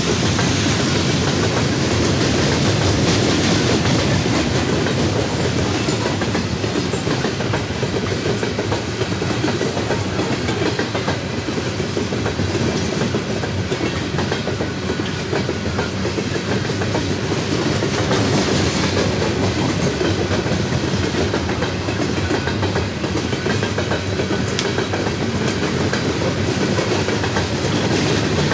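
Loaded Norfolk Southern coal hopper cars rolling steadily past, steel wheels on the rails with a clickety-clack over the rail joints.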